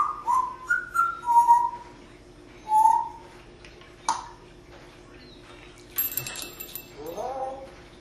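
African grey parrot whistling a run of short, clear notes that step up and down in pitch over the first two seconds, then one more note about three seconds in. A short raspy noise and a brief rising vocal sound follow near the end.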